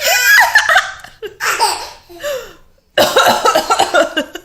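A baby laughing hard in loud, high-pitched bursts, the loudest in the first second and another from about three seconds in.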